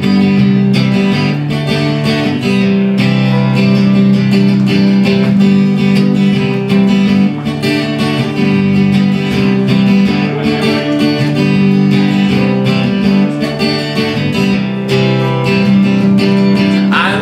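Several acoustic guitars strumming chords together in a steady rhythm: the instrumental intro of a song, before the vocal comes in.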